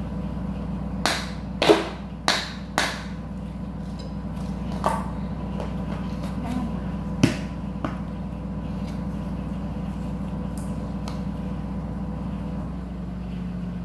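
Plastic ice cube tray being knocked and twisted to free ice cubes: four sharp knocks in quick succession about a second in, then a few lighter clicks and taps, over a steady low hum.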